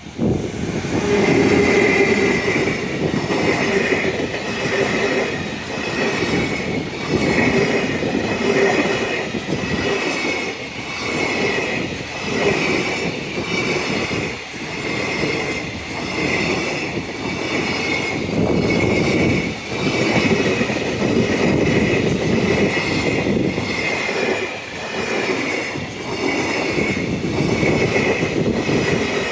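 Freight train rolling past at speed: continuous wheel-on-rail rumble with a high ringing squeal, the level swelling and dipping every second or two as the wagons go by.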